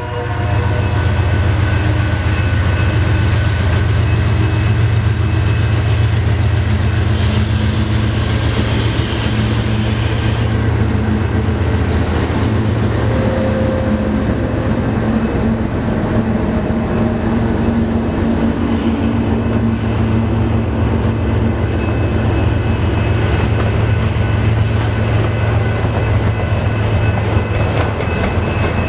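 Freight train pulling out: diesel locomotives running with a strong steady low drone while the wheels click over the rail joints. About a quarter of the way in there is a burst of high hiss that lasts about three seconds.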